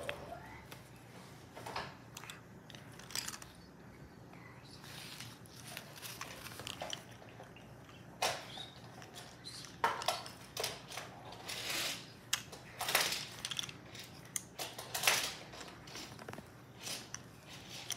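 Scratching and rustling against drawing paper as a coloured pencil and a sleeve move over it, in short irregular strokes that come more often in the second half.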